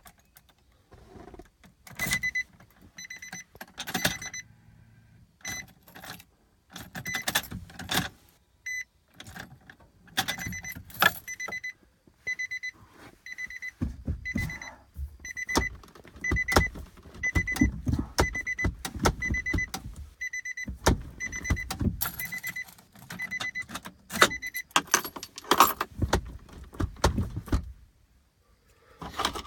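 A vehicle's warning chime beeping a little more than once a second, among jangling keys, clicks and knocks. Low rattling bursts come in the second half, as the vehicle is tried and does not start.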